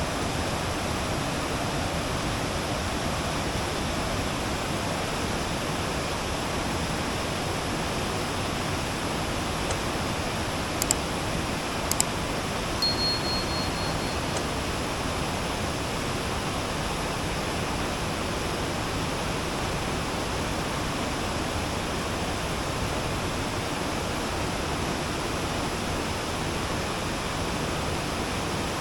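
Steady rushing water, such as a waterfall or stream, making an even hiss. Two sharp clicks come about eleven and twelve seconds in, followed by a brief, rapid, high-pitched pulsing.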